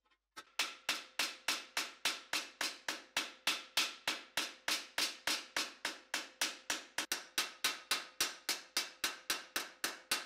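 Steady hand-hammer blows on a steel helmet held over a horn stake anvil, about three a second, each strike giving a short metallic ring.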